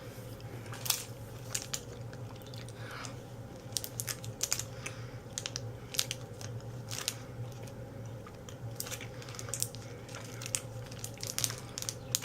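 Close-up chewing of an Unreal chocolate candy: irregular small crunches and mouth clicks, over a steady low hum.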